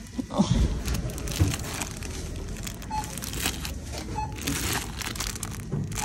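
Irregular crinkling and rustling, as of something being handled, with a dull knock about half a second in and another about 1.5 s in.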